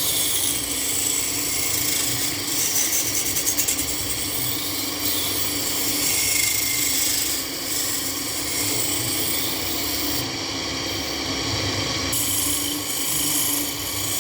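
A wood lathe running, with a turning tool cutting and scraping the spinning wood: a continuous scraping hiss over the steady hum of the lathe motor.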